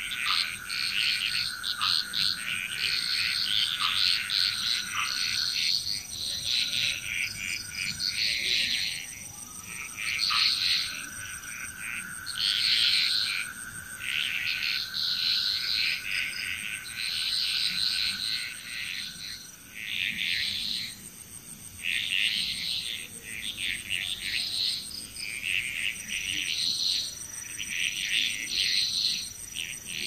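A chorus of frogs calling in overlapping bouts of fast, pulsed calls, each bout lasting one to two seconds and following another every couple of seconds, over a steady high-pitched drone.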